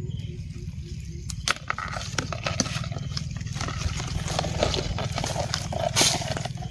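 Dry leaf litter crackling and rustling underfoot, with scattered light clicks, over a steady low rumble.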